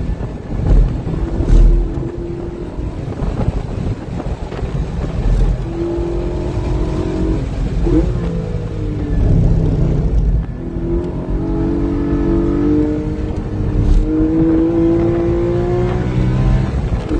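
Porsche GT4's flat-six engine running hard on track, its pitch climbing several times as it pulls through the gears, over a steady low road rumble, with a few sharp knocks.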